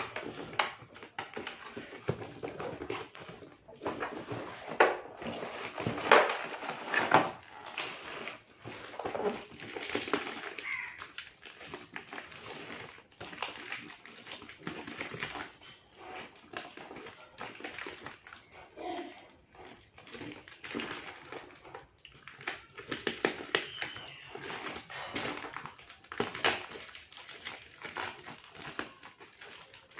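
Packing tape and plastic wrap being peeled, torn and crinkled off a heavily taped parcel, in irregular crackles and rips, with scissors cutting into the wrap near the end.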